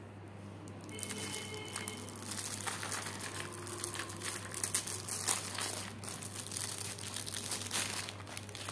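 Clear plastic film crinkling around a plastic drill-bit storage case as it is handled and unwrapped. The irregular crackling starts about a second in.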